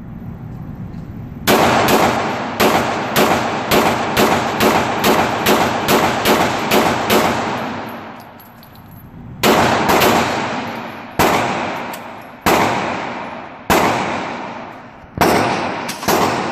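Ruger SR40 .40 S&W semi-automatic pistol fired in a fast string of about sixteen shots, then, after a short pause, about seven more at a slower pace. Each shot is followed by a short echo in the indoor range's booth.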